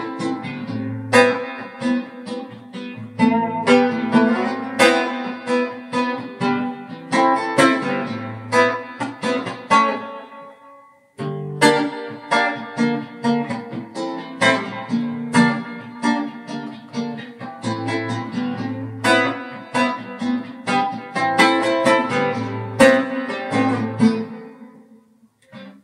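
Solo guitar playing an instrumental piece in plucked notes and chords. It pauses briefly about ten seconds in, picks up again, and fades out near the end.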